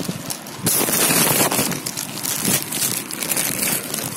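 Thin plastic courier mailer bag crinkling and rustling as a small box is pulled out of it, loudest about a second in, with further rustles after.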